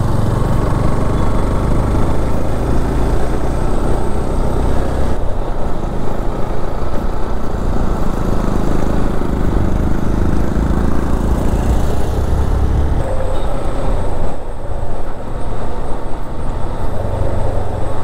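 Honda Hornet 160R motorcycle's single-cylinder engine running under way, with wind and road noise. The sound drops briefly about five seconds in and again near fifteen seconds.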